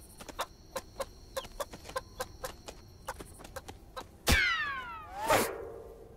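Cartoon sound effects: a chicken clucking with quick pecking taps. About four seconds in comes a sharp hit and a falling whistle-like slide, then a second hit with a shorter falling tone about a second later.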